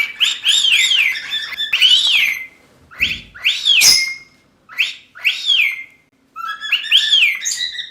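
Pet parrot calling: runs of short, clear whistled notes, each rising and falling in pitch, with brief pauses between them. A sharp click comes near the middle.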